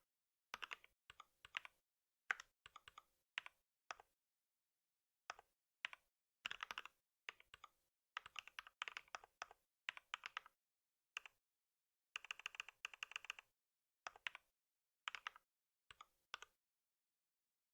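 Computer keyboard typing in short bursts of keystrokes separated by pauses, with a quick, dense run about twelve seconds in; the typing stops near the end.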